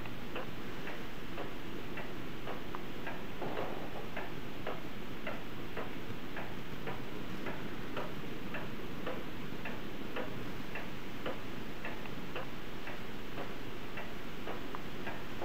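A clock ticking steadily and evenly, a few ticks a second, over a steady background hiss.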